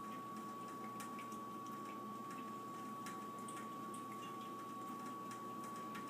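Thin stream of water running from a sink faucet, with small irregular clicks and drips as a cat laps at the stream. A steady high-pitched tone runs underneath.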